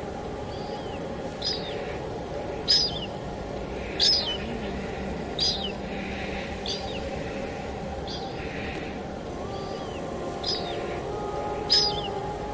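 A songbird giving short, sharp, high chirps over and over, roughly one every second or so, over a steady hiss of falling rain.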